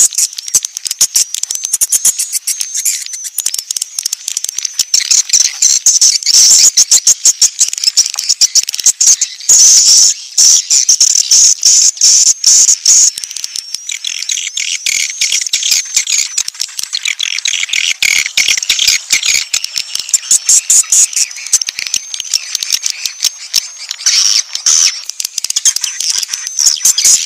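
Recorded edible-nest swiftlet calls: a dense, loud, rapid twittering of chirps and clicks. This is an edited lure track played at a swiftlet house to draw the birds in. The call pattern shifts a little about halfway through, as an evening 'pull' call begins.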